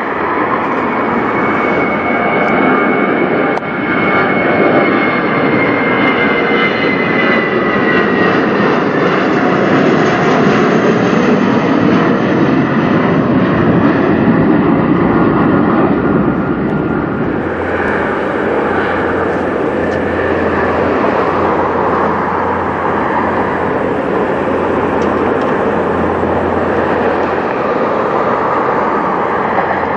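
Jet airliner taking off, its engines making a steady loud roar with a high whine that slowly falls in pitch as the Airbus A320-family jet climbs away. At about the middle the sound changes to a second jet takeoff, a regional jet with tail-mounted engines, with a steady low hum under the roar.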